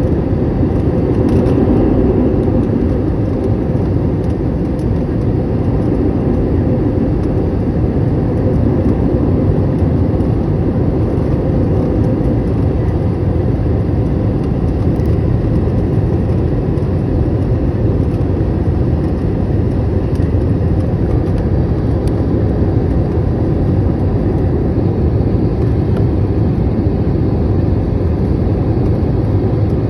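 Steady low roar of an airliner's engines and rushing air, heard inside the passenger cabin on the descent to land.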